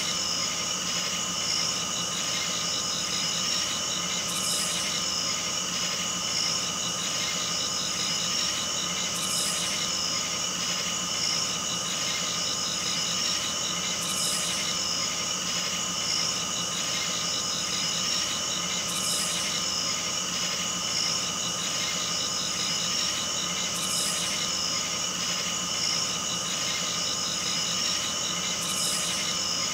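A steady drone of several held tones, with a brief high hiss that comes back about every five seconds.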